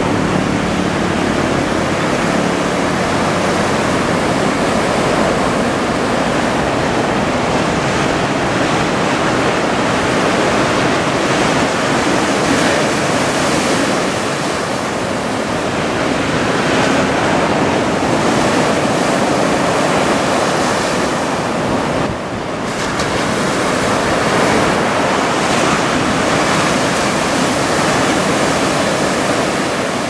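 Large typhoon surf breaking and washing up the beach as a steady, loud rush of noise that swells and eases with the sets, with one brief dip about two-thirds of the way through.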